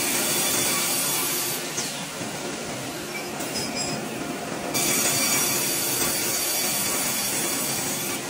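Sawmill log-carriage saw cutting lengthwise through a pine log as the carriage runs along its rails: a steady, loud rasping noise with a faint high squeal. It is louder for the first second and a half, drops for about three seconds, and rises again about five seconds in.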